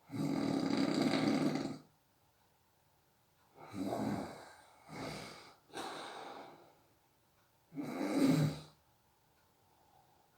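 A person snoring in their sleep: a long snore right at the start, a few shorter breaths about four to seven seconds in, and another snore about eight seconds in, with quiet pauses between.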